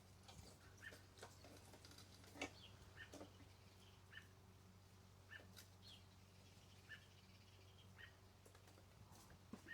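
Near silence with a small bird chirping faintly, one short chirp repeated about every second or so, over a low steady hum.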